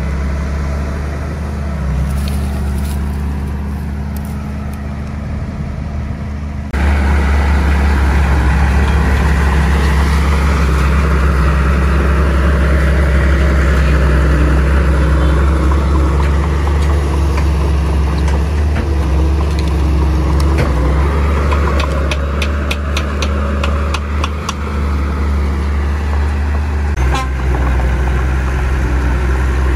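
Bulldozer diesel engines running hard, the engine note rising and falling as the machines work under load. The sound jumps suddenly louder about seven seconds in, and a quick run of sharp clicks comes about two-thirds of the way through.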